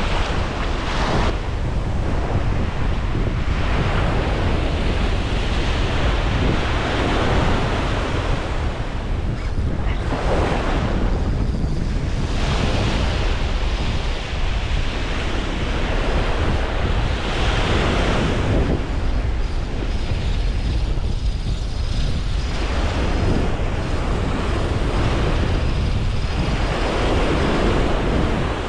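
Ocean surf washing up a sandy beach, the wash surging every few seconds, with wind buffeting the microphone.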